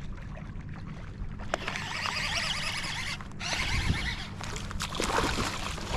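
Shallow water sloshing and splashing in two stretches, about a second and a half in and again near the middle, over a steady low rumble, with a few sharp clicks.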